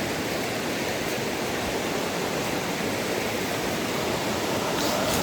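Mountain stream flowing, a steady even rush of water.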